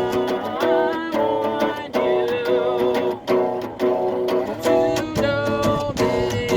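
Music: a song with strummed guitar chords changing about twice a second.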